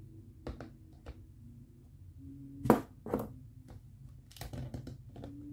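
Plastic toy kitchen set being handled: a plastic toy frying pan set down on a plastic toy stove, and the stove's parts pressed and slid. A series of light plastic clicks and knocks, the loudest a sharp clack a little under three seconds in.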